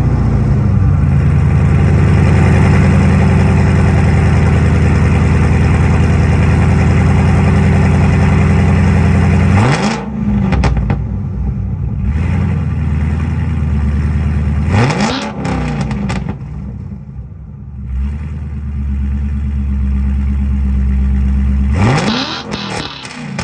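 Ford Mustang's engine running through newly installed Kooks headers and exhaust: a loud, steady idle just after start-up, then three short throttle blips about ten, fifteen and twenty-two seconds in, each rising and falling back to idle.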